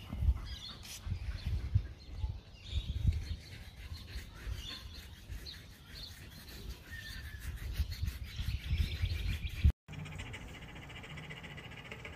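Small birds chirping here and there over irregular low rumbling bursts on the microphone. About ten seconds in, the sound drops out for a moment and gives way to a steady low hum.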